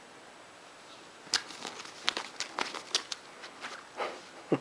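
A hairless kitten's claws scratching and kicking at denim jeans and bedding: a run of small scratchy clicks and rustles starting about a second in, ending with a louder knock.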